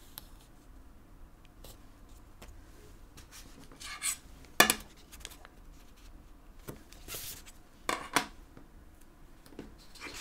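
Light clicks, taps and rustles of washi tape being unrolled and pressed onto a paper notebook page. There are a few sharper clicks, the loudest about four and a half seconds in and two close together near eight seconds.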